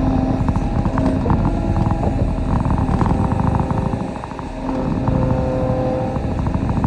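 Kobelco SK35 mini excavator's diesel engine running under working load, with scattered clanks and knocks throughout; the engine note drops briefly about four seconds in.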